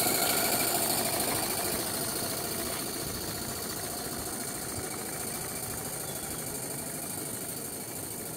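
3/4-inch scale Allchin live-steam traction engine running steadily, growing gradually quieter as it drives away.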